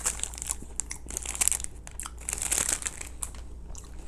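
Plastic snack wrapper crinkling in several short bursts as it is handled.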